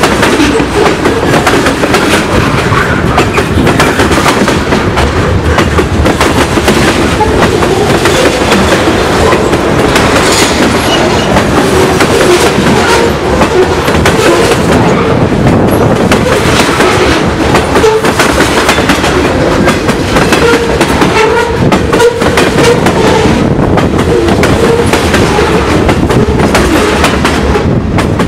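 Freight cars (gondolas and covered hoppers) rolling past close by: a steady, loud rumble of steel wheels on rail, with frequent clicks and knocks as the wheels pass over the rail joints.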